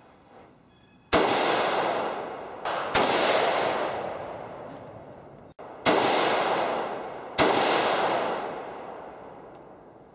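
Four gunshots, the first about a second in and the rest at intervals of one and a half to three seconds. Each has a long echoing decay, and a fainter bang comes just before the second shot.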